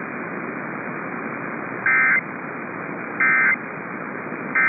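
Emergency Alert System end-of-message data bursts: three short bursts of rapid two-tone digital data, about 1.4 s apart, the third near the end, over steady radio hiss. They signal the end of the broadcast weather warning.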